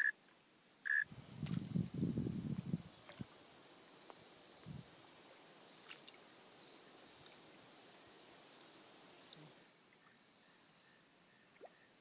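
Crickets and other insects trilling in a steady, high-pitched drone, with a brief muffled rustle about a second in. Near the end a single cricket chirping in an even pulse stands out.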